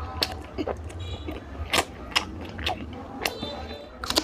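Close-miked wet chewing and lip-smacking of a mouthful of rice and oily mutton curry, with sharp smacks several times a second over a steady low hum.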